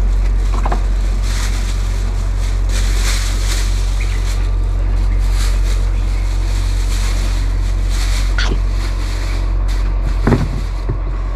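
A steady low rumble under a shifting hiss, with a few short faint knocks, the clearest about ten seconds in.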